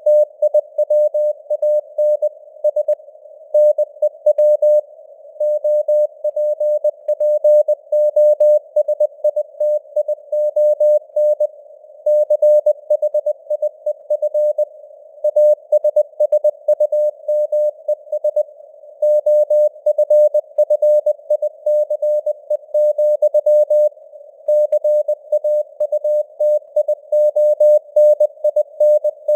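Morse code (CW) sent at 20 words per minute as a single mid-pitched keyed tone, dots and dashes in steady rhythm with word gaps, over a hiss of simulated radio noise.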